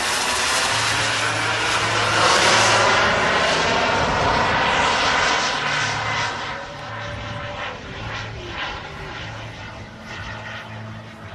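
Turbine jet engines of a large radio-controlled Concorde scale model passing by: a steady jet roar that swells to its loudest about two seconds in, then fades as the model flies away.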